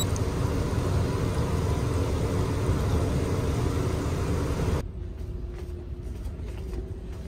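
Loud, steady rumble aboard a large car ferry. About five seconds in it cuts sharply to a quieter rumble with a faint steady hum.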